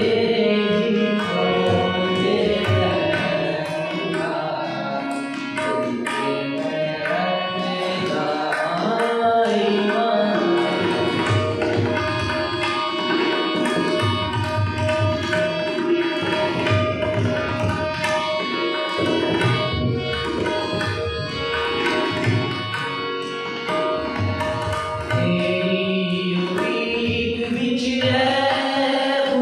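Communion hymn sung by voices with tabla drum accompaniment, keeping a steady rhythm.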